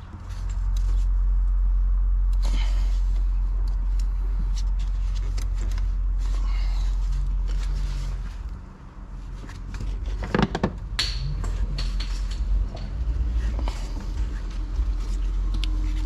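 Hands working an intercooler pipe into place in a car's engine bay: scattered clunks and scrapes of the pipe and parts, the sharpest about ten seconds in, over a loud low rumble that drops away briefly about nine seconds in.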